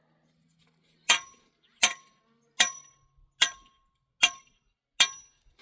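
Six evenly spaced metallic strikes, about one every 0.8 seconds, each ringing briefly at a few clear pitches, like a hammer hitting metal.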